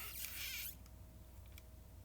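A short dry rustle that stops suddenly under a second in, then a few faint ticks over a low steady hum.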